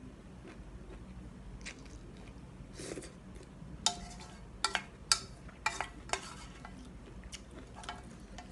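A wooden spoon stirring and scooping noodles in an enamelware wok, knocking against the pan in a run of sharp clicks with a short ring, most of them between about four and six seconds in. Soft chewing runs underneath.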